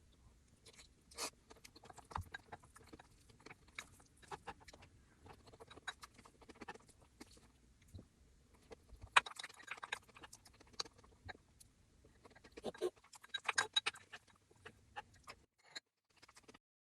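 A person chewing and biting food: a steady stream of small crunchy clicks and crackles, thickest about nine seconds in and again about thirteen seconds in, dropping out shortly before the end.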